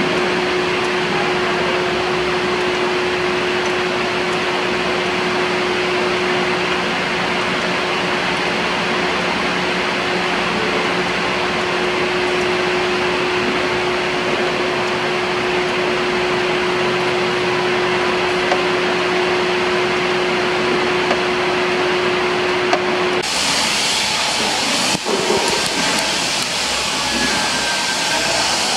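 Steady whirring machine noise with a low hum. About 23 seconds in, the hum drops out and the noise turns to a brighter hiss.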